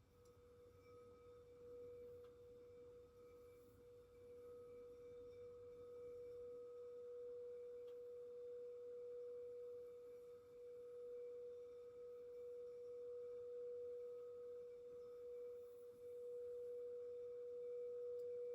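Crystal singing bowl sounding one steady, pure tone that gradually swells louder, with a faint higher overtone wavering above it.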